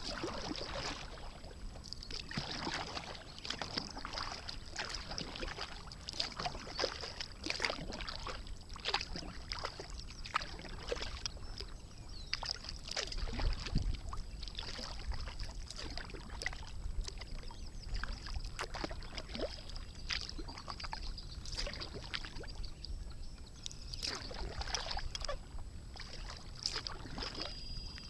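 Sea kayak being paddled across rippled water: an irregular run of small paddle splashes and drips as the blades dip in and lift out.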